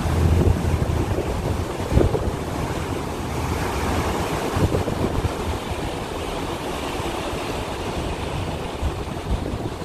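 Wind buffeting the microphone on a moving harbour ferry, over the rushing wash of the ferry's wake and the low rumble of the boat.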